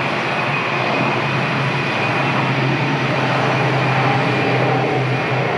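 Boeing 767 jet airliner engines running in a steady, loud rush with a low hum and a faint high whine, growing a little louder about a second in.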